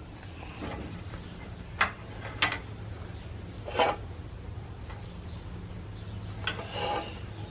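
A few separate clicks and light taps as turn signal lamp wiring and spade connectors are handled, over a steady low hum.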